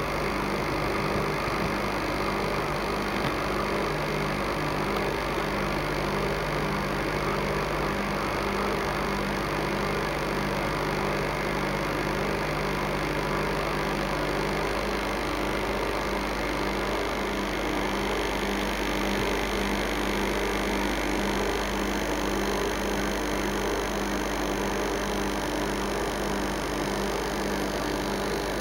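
Aquarium air pump running with a steady hum that pulses evenly, over a constant hiss.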